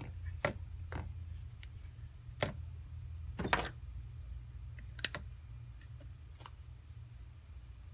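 Scattered small clicks and taps, about half a dozen, from hands and tools working on a phone as adhesive tape is laid onto it. The sharpest click comes about five seconds in. A steady low hum runs underneath.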